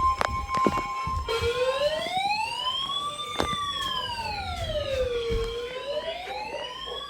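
A steady alert tone ends about two seconds in as a wailing siren starts, its pitch rising and falling slowly about once every four seconds. A few sharp clicks sound over it.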